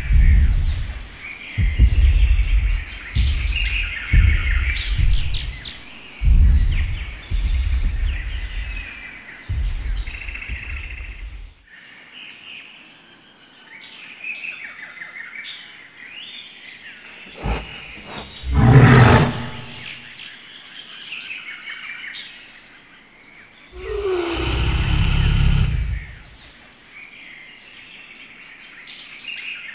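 Sound effects of an augmented-reality dinosaur show: recorded birdsong chirping through most of it, with a run of deep, heavy dinosaur footstep thuds for the first dozen seconds. About two-thirds through comes a short, loud burst, and a low dinosaur roar, falling in pitch, follows near the end.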